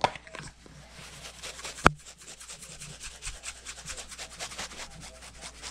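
Plastic shaker of Badia Complete Seasoning being shaken over raw strip steaks: a fast, even run of rattling shakes, several a second, as the dry seasoning scatters onto the meat. A sharp click comes at the start and one louder click a little under two seconds in.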